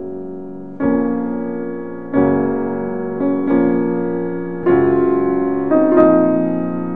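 Background piano music: slow, gentle chords, a new one struck about every second and a quarter, each ringing and fading.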